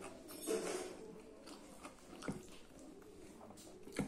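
A person chewing a mouthful of rice and curry, with soft wet mouth sounds and a couple of short clicks, one about two seconds in and one at the end.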